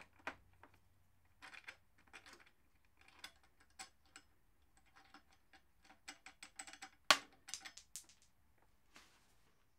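Light metallic clicks and taps from a bolt and wheelie-bar fittings being worked by hand, with a quick run of ticks around six seconds in and one sharp metal clack just after seven seconds.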